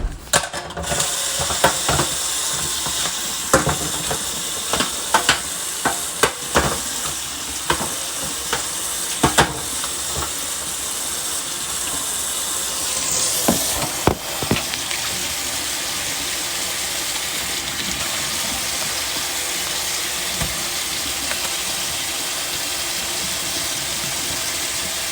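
Water running steadily from a tap into a kitchen sink during dishwashing, with dishes and utensils knocking and clattering over roughly the first half.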